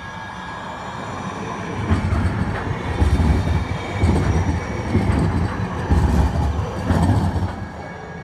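A two-car Siemens S70 light rail train pulls away and passes close by, growing louder. From about two seconds in, its wheels clatter over the rail joints in a run of heavy knocks, roughly one a second, fading near the end.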